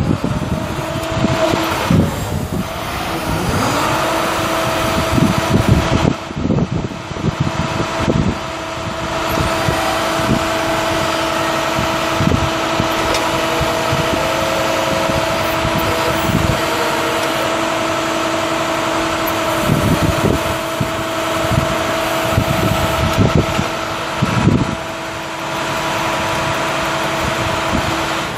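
2008 International 7400 bucket truck's MaxxForce DT 7.6 L inline-six turbo diesel running, with a steady whine that rises in the first few seconds and then holds level, and irregular low thumps and knocks throughout.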